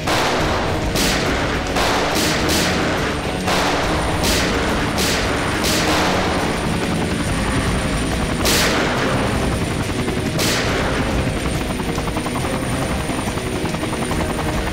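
Gunfire in a TV-drama shootout: a quick run of single shots in the first six seconds, then two more about two seconds apart, each with a short echoing tail, over a steady low rumble.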